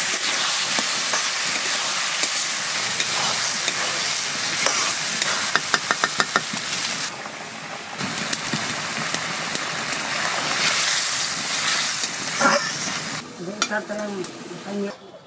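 Rice-field crab curry sizzling in a steel kadai as it is stirred with a metal spatula, with a quick run of spatula taps against the pan about six seconds in. The sizzling drops away near the end.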